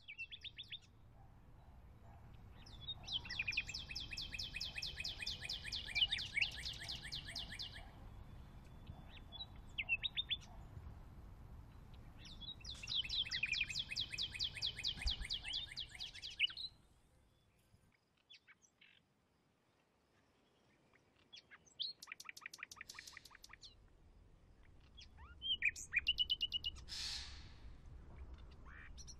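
Birds chirping in long, rapid trills, then a few shorter calls later on.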